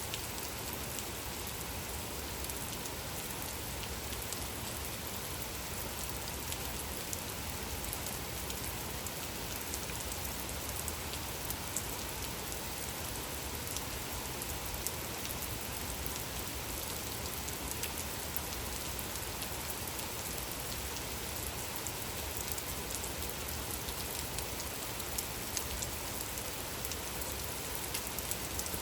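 Gentle rain falling steadily: an even hiss with scattered individual drop ticks.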